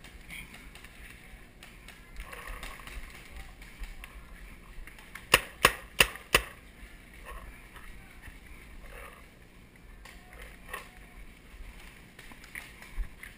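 Paintball marker firing four quick shots in a row, about a third of a second apart, close by.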